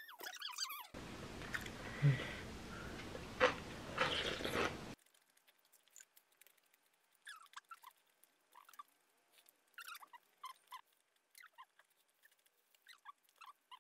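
Close-up eating sounds: soft chewing and small wet mouth clicks while eating boiled chicken. The first seconds hold a steady hiss with two sharp knocks, about two seconds apart.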